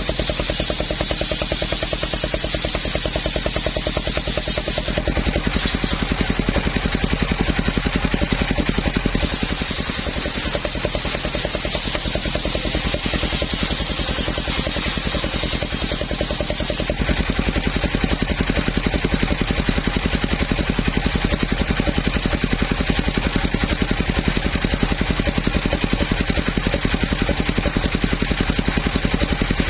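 Engine of a homemade circular sawmill running steadily with an even, rapid firing pulse, while the saw works through a coconut trunk; the high hissing part of the sound shifts about five, nine and seventeen seconds in.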